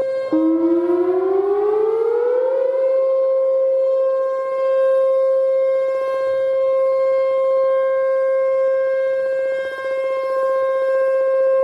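Whelen Vortex R4 electronic tornado siren sounding a steady alert tone, rich in harmonics. About a third of a second in, a second, lower tone starts and rises over about two seconds until it merges with the steady tone. The recordist takes the siren's sound as a sign that its speaker drivers need replacing.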